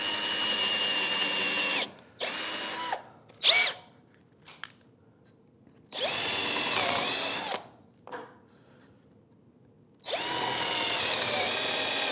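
18-volt cordless drill boring 3/16-inch pilot holes through a pine batten, running in bursts of one to two seconds with pauses between. Its motor whine rises as the trigger is squeezed and falls away as it is released.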